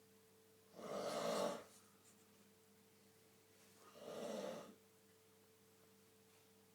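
A man snoring in his sleep: two snores about three seconds apart, the first louder, over a faint steady hum.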